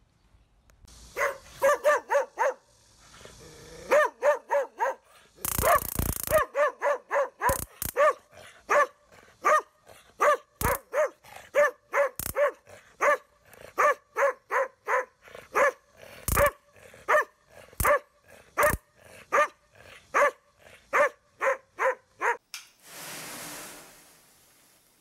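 Korean Jindo dog barking over and over, in quick runs at first and then steadily at about one to two barks a second, with a few sharp cracks and a short burst of noise among the barks. A short hiss near the end.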